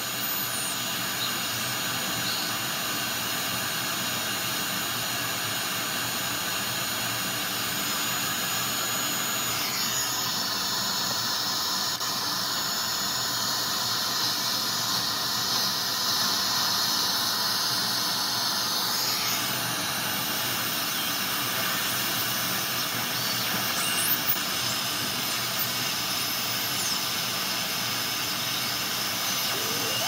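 Shortwave SSB receiver audio with no signal on frequency: a steady hiss of static and band noise. The noise changes tone for about nine seconds in the middle, and a few faint whistles glide in pitch near the end.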